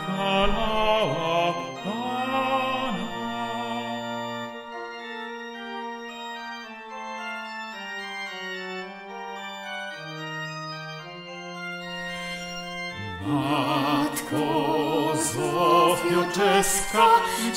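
Instrumental interlude of a hymn, led by organ: held chords that thin out in the middle, then swell into a fuller passage of wavering, vibrato notes about thirteen seconds in.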